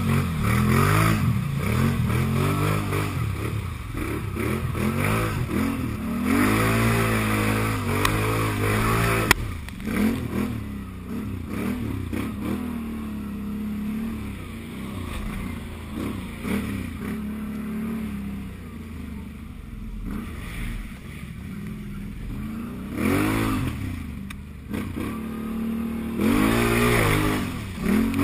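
Can-Am Outlander 1000 ATV's V-twin engine revving up and down over and over, working under load through deep mud. The throttle bursts are loudest a few seconds in and again near the end, with a quieter, lower-revving stretch in the middle.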